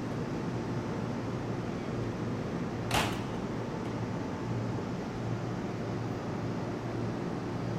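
Standing 415 series electric train humming steadily while stopped at the platform, with one sharp click about three seconds in.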